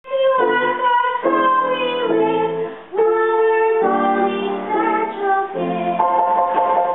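Music for a child's opera solo: sustained notes and chords that change about once a second, with a young girl's singing voice.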